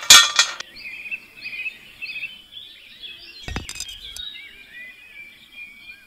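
Small plastic toy parts clicking and clattering as a toy trailer's drawbar is hooked onto a toy power tiller's hitch, with a second cluster of clicks about three and a half seconds in as the hitch pin is pushed in. Small birds chirp throughout.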